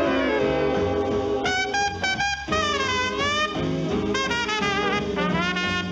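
Swing jazz background music, with brass instruments playing a sliding melody over a steady beat.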